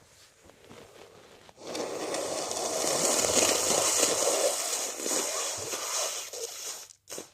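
A person blowing their nose: one long, unpitched blow that starts just under two seconds in, lasts about five seconds and cuts off abruptly, followed by a brief short puff.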